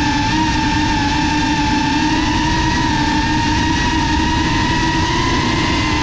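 FPV quadcopter's motors and propellers whining at a steady pitch in cruising flight, over a rough rushing noise.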